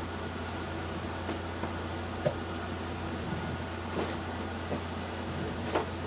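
An electric fan running with a steady hum, with three light knocks as a mop is worked across the floor.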